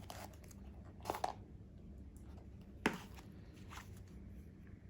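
Light rustles and taps of a watch box's packaging and paper contents being handled: four short, separate sounds, the sharpest a click about three seconds in.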